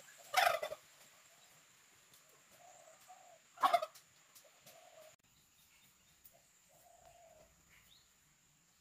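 Domestic turkey gobbling twice, each a short rattling call falling in pitch, about three seconds apart.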